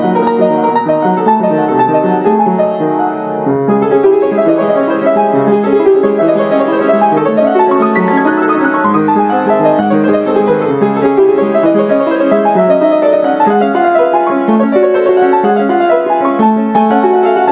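Background piano music, an unbroken run of notes with a short dip about three and a half seconds in.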